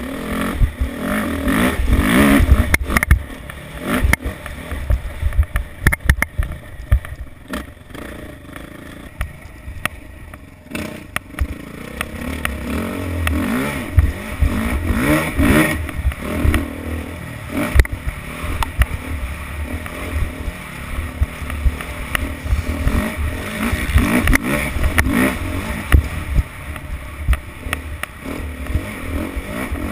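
Motocross bike engine revving hard and backing off as it is ridden over a rough dirt track, with knocks from the bumps and wind rush. The throttle eases for a few seconds about a third of the way in, then opens up again.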